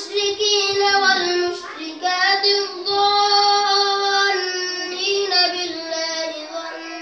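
A boy's voice chanting a slow melody in long held notes, with short breaks for breath.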